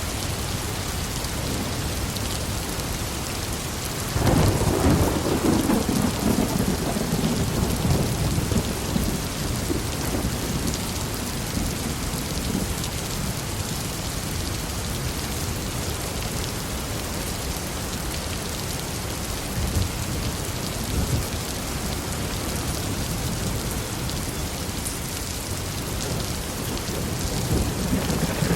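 Thunderstorm: heavy rain falling steadily, with a sudden thunderclap about four seconds in that rumbles and fades over several seconds. A smaller rumble comes later, and thunder builds again near the end.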